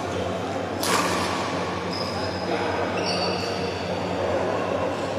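A badminton racket strikes the shuttlecock once, sharply, about a second in, ringing briefly in the hall. Then comes a series of high squeaks from players' shoes on the court floor as the rally ends, with voices and a steady hall hum underneath.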